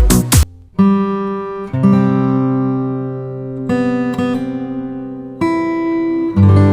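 Background music: an acoustic guitar strumming chords, each left to ring, with a new chord struck every second or two.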